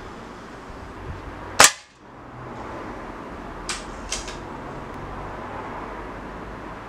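A single sharp shot from an air rifle firing a pellet about a second and a half in, followed about two seconds later by a few light clicks.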